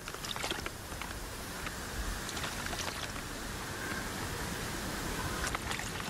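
A Tristan thrush bathing in a shallow pool, its wings splashing the water, over a steady rush of water with a few sharper splashes.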